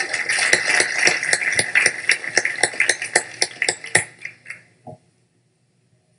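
Audience applauding: many overlapping hand claps that thin out and stop about four and a half seconds in.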